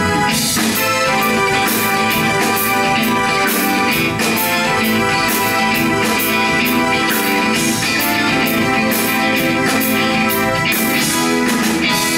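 Instrumental progressive rock played live by a band of synthesizer, electric bass, drum kit and electric guitar: held chords over a steady drum beat with cymbals, loud and continuous.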